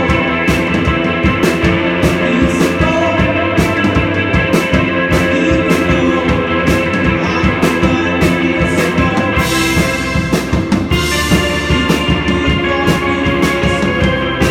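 Live rock band playing, with a drum kit beating steadily under sustained guitar chords.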